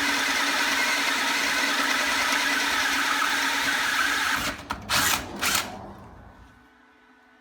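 A power tool motor runs at a steady speed for about four and a half seconds, then stops. Two short bursts follow about half a second apart, and the sound dies away.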